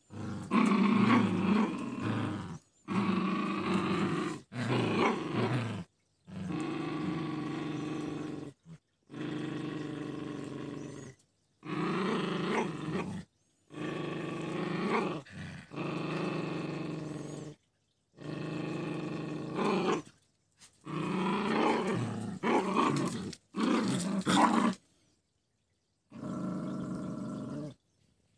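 Poodles growling as they play tug-of-war over a rope toy. The growls come in runs of a second or two, broken by short pauses, and stop shortly before the end.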